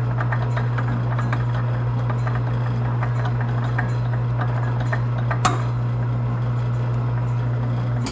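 Metal lathe running in back gear, winding music wire onto a mandrel to close the end coils of a spring: a steady motor hum with light ticking, a sharp click about five and a half seconds in, and the lathe stopping at the very end.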